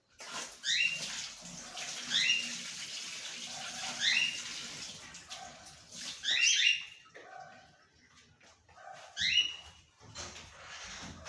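A caged pet bird calling repeatedly: short, rising chirps every two to three seconds. Running water hisses under the first few seconds.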